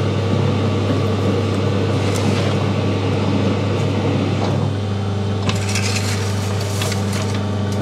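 Large metal lathe running with a steady hum while its four-jaw chuck spins. The spindle is brought to a stop about halfway through, followed by a few sharp clicks and light metallic knocks.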